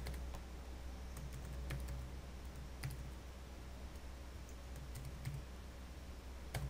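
Faint computer keyboard keystrokes, a handful of scattered taps rather than fast typing, over a steady low hum.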